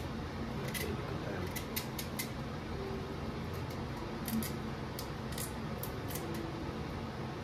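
Kitchen knife cutting through a tough piece of raw pumpkin: a string of sharp, irregular clicks and snaps as the blade bites the hard flesh, over a steady low hum.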